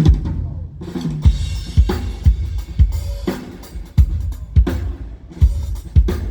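Acoustic drum kit played in a steady groove, the bass drum hitting about twice a second under snare and cymbal strokes.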